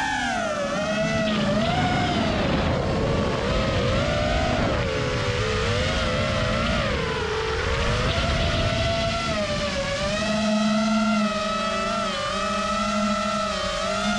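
FPV quadcopter drone's motors whining in flight, several tones close together whose pitch rises and falls with the throttle, then holds steadier over the last few seconds, over a rushing noise.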